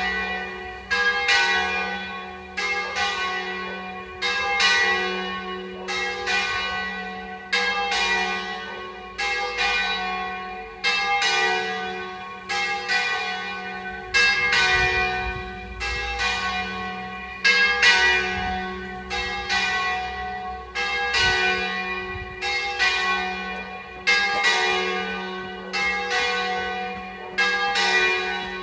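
Two church bells, pitched F-sharp and G-sharp, ringing steadily: one loud stroke about every second, each left to ring and fade under the next.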